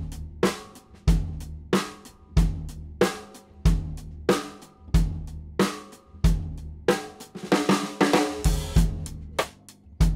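A drum kit groove featuring a Porthan steambent solid-shell 14 x 5.5 inch snare drum struck with sticks, over a steady bass drum pulse and cymbal.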